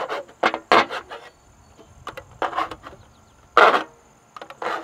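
Knife blade piercing and slicing through a thin aluminium foil pan to cut an air hole: a string of short, scratchy crinkling scrapes, the loudest about three and a half seconds in.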